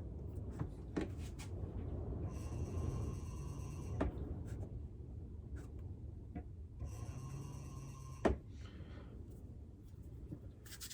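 Electric potter's wheel running, its motor whining in two spells, with clay being rubbed by hand and a few sharp clicks, the loudest about a second and eight seconds in.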